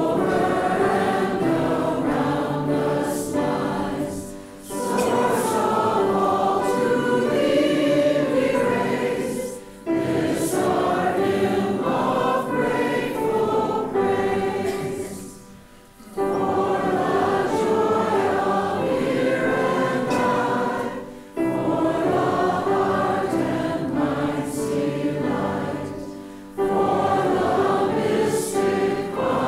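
Many voices singing a hymn together, in phrases of about five seconds with a short breath between each.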